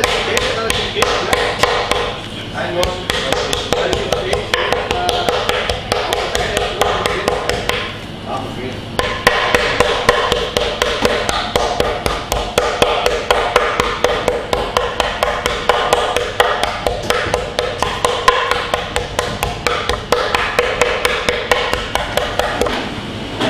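Quick, light, rapid taps of a flat stainless-steel meat pounder beating a carabinero prawn between plastic film on a wooden cutting board, several taps a second with two brief pauses. The prawn is being flattened very gently to about 2 millimetres thin without tearing.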